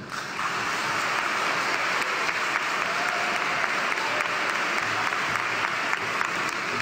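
An audience applauding, a dense, steady clapping.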